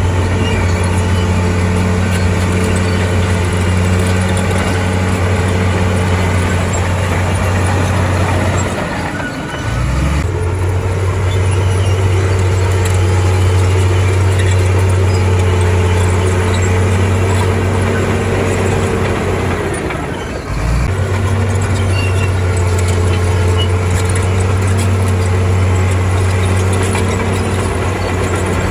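Heavy diesel engine running steadily under load, its note dropping briefly twice, about a third and two-thirds of the way through, then picking back up.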